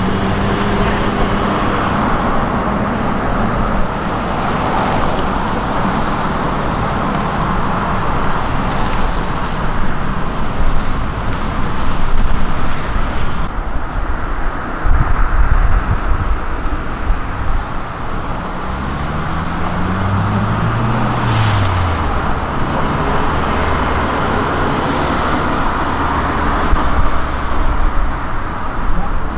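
Road traffic noise: vehicles passing in waves that swell and fade every few seconds. About twenty seconds in, one engine's pitch rises and then falls as a vehicle goes by.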